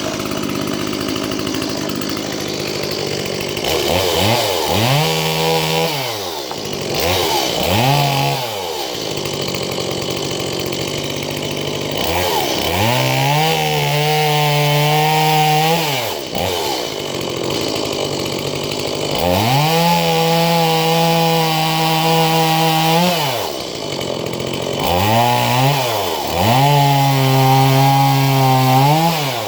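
Stihl MS170 two-stroke chainsaw, freshly started, revved up to full throttle about six times. Each time it holds at high revs for one to four seconds, then drops back to a lower idle.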